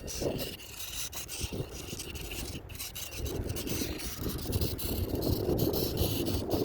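Gusty wind buffeting the microphone, with rough rubbing noise that comes and goes.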